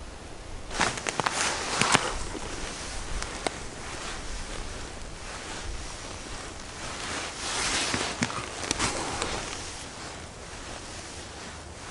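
Rustling of thick winter clothing and mittens with crunches in the snow as an ice angler moves about at the hole, loudest in bursts about a second in and again around eight seconds, with a few sharp clicks.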